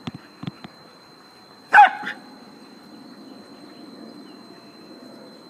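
A corgi gives a single short bark, falling in pitch, about two seconds in. A few light knocks come just before it.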